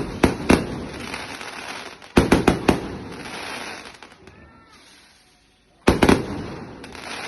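Fireworks going off in three volleys of sharp bangs: one at the start, one about two seconds in and one near the end. Each volley is a quick run of three or four bangs that fades out over a second or two.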